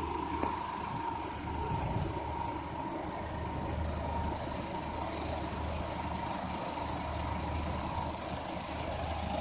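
Silica sand washing machine running: a steady mechanical hum with a thin, constant whine over it.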